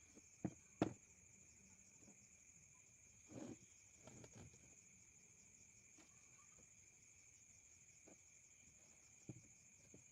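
Steady high insect chirring, typical of crickets, with a few soft knocks: the loudest two about half a second apart near the start, more a few seconds in and one near the end.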